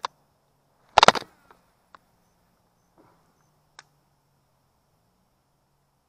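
Sharp knocks and clicks of gear being handled on a fishing kayak. A brief rattling clatter comes about a second in, then a few single taps.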